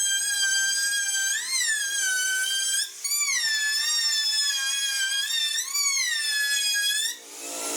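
Electric power tool motor whining at high speed, its pitch rising and sagging again every second or two as the load on it changes; it drops out briefly about three seconds in and cuts off near the end.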